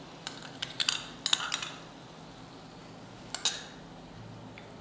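A metal spoon clinking and tapping against a small glass bowl several times in quick succession while scraping out yogurt, then another short pair of clinks about three and a half seconds in as the bowl is set down.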